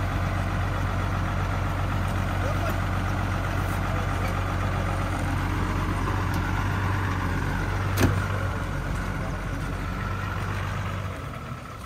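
Engine of a truck-mounted borewell drilling rig running steadily with a low hum. One sharp knock comes about eight seconds in, and the engine sound drops away about eleven seconds in.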